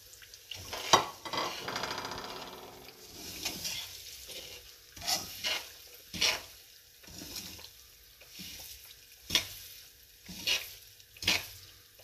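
Semolina frying in hot oil in a steel karahi: a short sizzle just after the first clink of the spoon, then a metal slotted spoon stirring the semolina and scraping against the pan in irregular strokes. The semolina is being roasted until brown.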